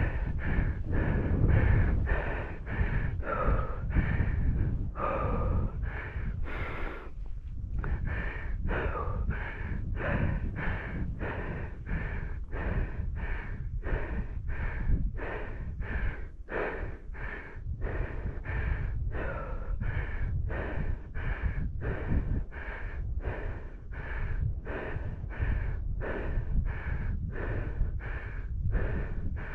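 A person panting hard and rhythmically, out of breath, at roughly one and a half breaths a second, with wind rumbling on the microphone.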